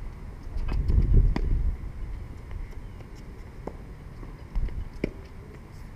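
Tennis balls being hit with rackets and bouncing on a hard court: several sharp knocks, three close together about a second in and more spaced out later, over a low rumble that is loudest about a second in.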